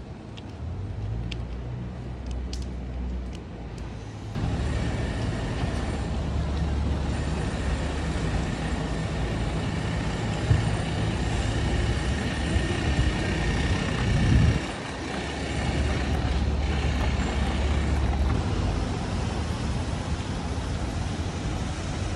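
City street traffic on wet pavement: cars and trucks pass with steady engine rumble and tyre hiss. It gets louder suddenly about four seconds in, and one vehicle passes loudly around fourteen seconds in.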